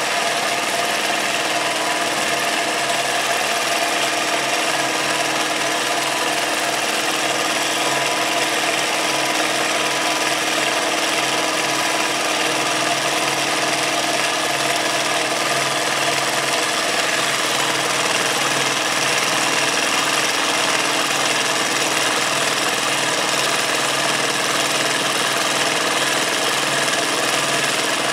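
Longarm quilting machine running steadily as it stitches continuously, guided freehand through free-motion quilting.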